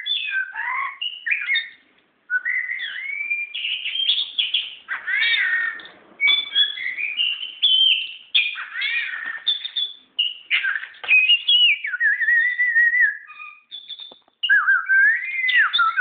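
Oriental magpie-robin (kacer) singing a long, varied song of clear whistled phrases that glide up and down, broken by short pauses about two seconds in and again near the end.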